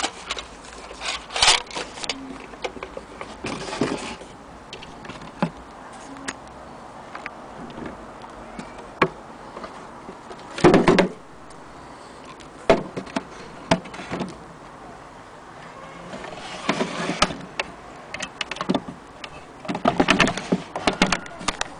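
Scattered knocks, clicks and rustling from handling the wooden cabinet of an antique Willcox & Gibbs sewing machine and its hinged door. There are louder clattering bursts about halfway through and again near the end.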